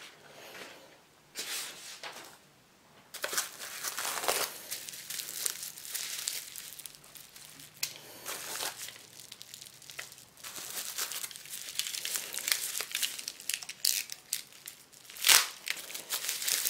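Package being unwrapped by hand: packaging crinkling and tearing in irregular rustles, with a louder, sharper rip near the end.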